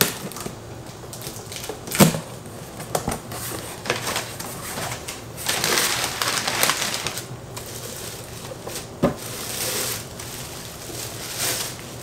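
Plastic containers and frozen food packages being handled, with a few sharp knocks and stretches of rustling.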